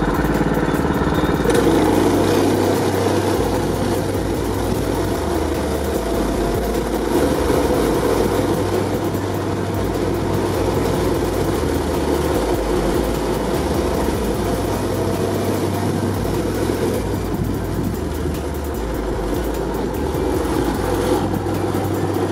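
Predator 212cc single-cylinder four-stroke engine with a partial Stage 1 kit, running steadily at speed on a go-kart, with wind rushing past.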